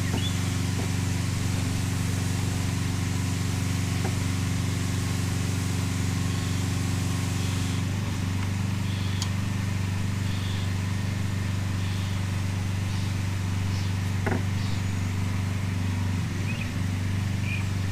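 Steady low mechanical hum of a running motor or engine, with a slight change in its tone about eight seconds in.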